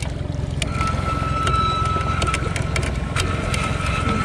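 Electric downrigger's motor winding in its cable, a steady high whine that starts about a second in, over the low steady running of the boat's engine at trolling idle.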